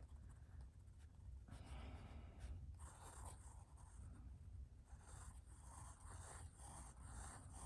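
Faint, irregular scratching of a fine-point steel fountain pen nib across paper as someone writes, in short strokes with small pauses between them.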